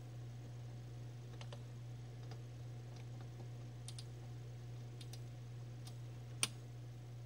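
Scattered light plastic clicks and taps of small laptop parts being handled while fumbling to plug the cooling fan's cable into its connector, with one sharper click about six seconds in, over a steady low hum.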